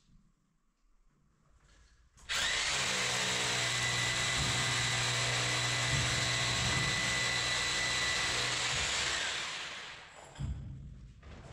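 Electric hand drill running at a steady speed for about seven seconds. It starts abruptly a couple of seconds in and winds down near the end; a short knock follows.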